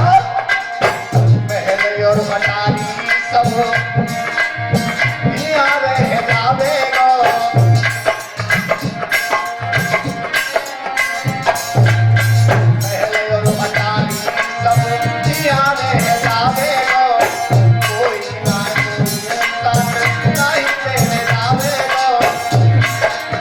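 Instrumental interlude of Indian devotional folk music: a wavering melody line over a steady hand-drum rhythm with jingling percussion.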